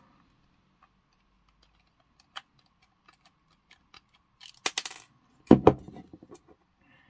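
Small clicks and ticks of a precision screwdriver working on the plastic housing and screws of a eufyCam 3 S330 security camera being taken apart. A quick cluster of sharper clicks comes about four and a half seconds in, followed by a louder knock.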